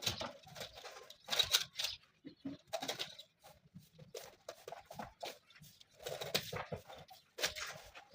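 Fabric being handled during armchair reupholstery: irregular tearing and rustling in short bursts, with a few sharp knocks.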